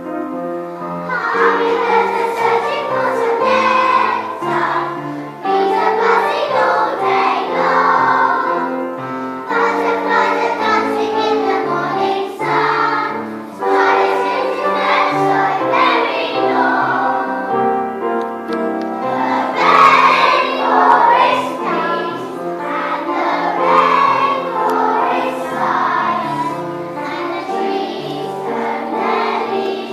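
Young children singing together as a choir to a pitched instrumental accompaniment.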